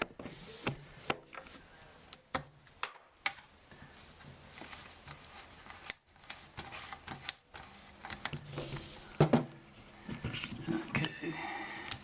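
Scattered clicks and rustling of hands and tools working on the plumbing fittings under a kitchen sink, with irregular sharp ticks and knocks and a louder clack about nine seconds in.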